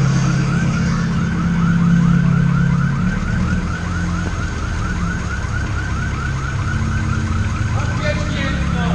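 A siren-like electronic yelp repeating fast, about four or five rising chirps a second without a break, over a steady low engine hum.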